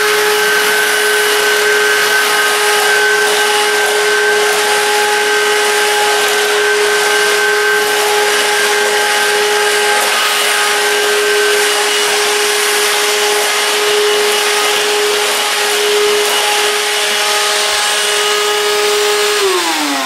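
Russell Hobbs cordless stick vacuum cleaner running at full speed with a steady high-pitched motor whine while sucking dust off a tiled floor, then winding down with a falling pitch near the end as it is switched off.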